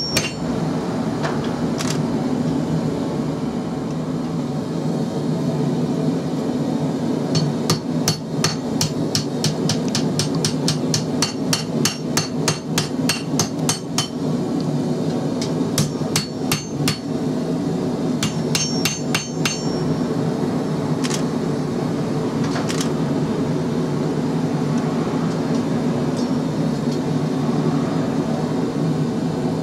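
Hand hammer striking a red-hot XC75 steel knife blade on an anvil, in quick runs of about four blows a second through the middle stretch, then a few single blows; a steady low drone runs underneath.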